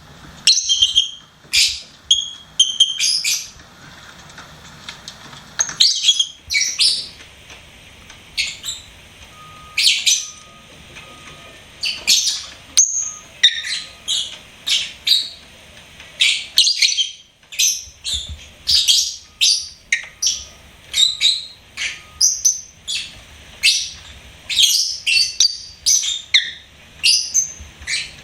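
Lovebirds chirping: short, high-pitched chirps in quick, irregular runs with brief pauses between them.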